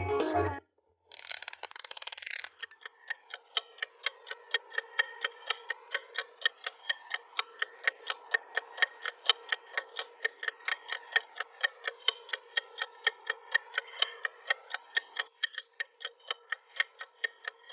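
Mechanical kitchen timer ticking steadily, about three to four ticks a second, after a short rasping sound about a second in.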